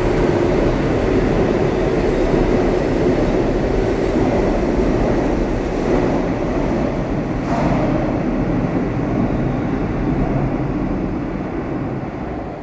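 Madrid Metro series 8000 (second batch) train running, a steady rumble with a faint high tone, a brief sharper noise partway through, and fading near the end.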